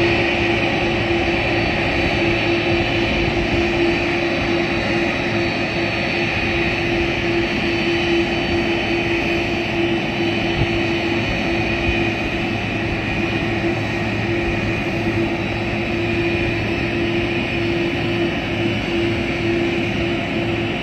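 Air Force One, a Boeing VC-25A (747-200 type), taxiing slowly with its four General Electric CF6 turbofan engines at low power. The engines make a steady jet whine: a held hum with a higher whistle over a constant rushing roar.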